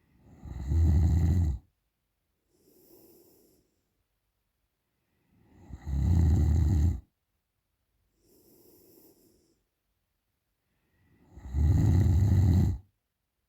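A woman snoring through an open mouth in deep sleep. Three loud, fluttering snores come about six seconds apart, each followed by a much quieter breath.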